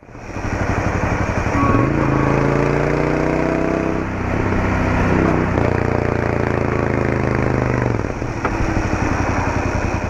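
Royal Enfield Interceptor 650's parallel-twin engine running on the road. It climbs in pitch as the bike accelerates, drops away about four seconds in, climbs again and eases off about eight seconds in.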